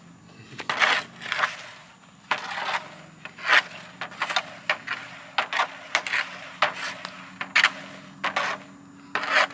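Hockey stick blade scraping and tapping a puck back and forth across a plastic shooting pad in short, irregular strokes, about two a second.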